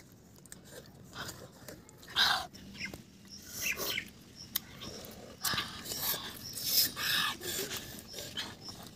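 Wet mouth sounds of people eating rice and curry with their hands: chewing and lip smacking in irregular bursts, busiest in the second half.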